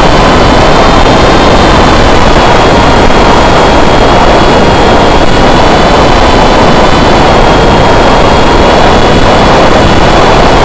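Foam FPV flying wing in flight, heard from its own onboard camera: the electric motor and propeller give a steady whine over a loud rush of wind.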